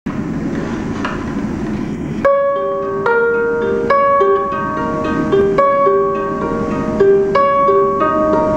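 About two seconds of steady background noise, then a ukulele begins picking a slow melody of single plucked notes, each left to ring and overlap the next.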